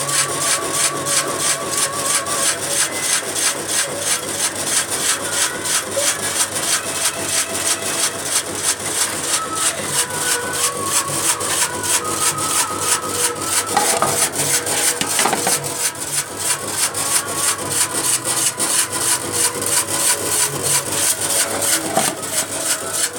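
Electric 150-watt chip-slicing machine cutting, a steady rhythm of slicing strokes about four a second.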